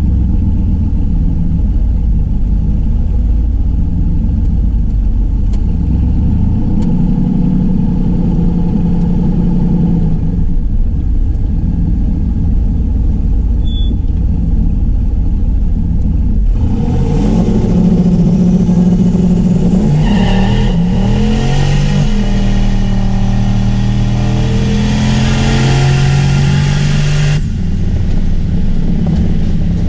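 Boosted car engine heard from inside the cabin, cruising steadily, then from about halfway accelerating hard: the revs climb, dip at a gear change and pull up again before it backs off near the end.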